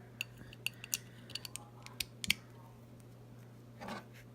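Light, sharp clicks and taps of a Glock pistol being handled as its slide is fitted back onto the frame, about eight of them over the first two and a half seconds. A steady low hum runs underneath.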